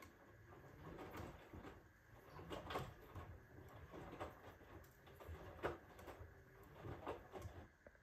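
Hoover H-Wash 350 front-loading washing machine tumbling a load of wet towels, the laundry sloshing and thudding softly in the drum at an uneven beat. The tumbling stops just before the end.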